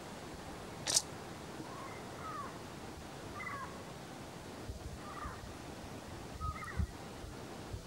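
Faint, short mewing calls from an unseen animal, repeated every second or so, over a steady hiss. A sharp click about a second in, and a few low thumps near the end.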